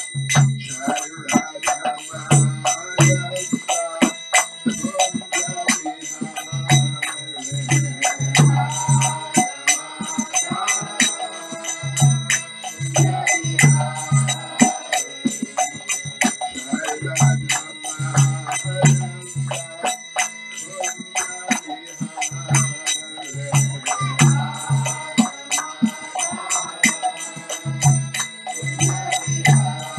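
Karatalas, small brass hand cymbals, struck in a steady fast rhythm, their high ringing carrying on between strikes, under a man's chanting voice in a devotional kirtan.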